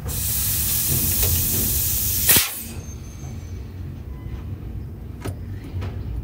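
Compressed air hissing out of a truck trailer's air-brake line as the glad-hand coupling is pulled apart, ending in a short sharp blast a little over two seconds in. Then a couple of light knocks as the coiled air lines are handled.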